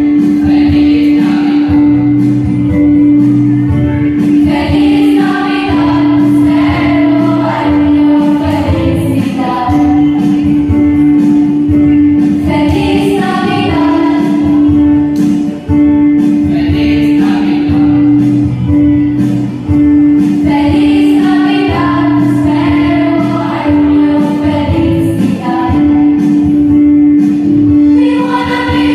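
A mixed school choir, led by girls' voices on microphones, singing a Christmas carol over an electronic keyboard accompaniment that holds a steady low note underneath.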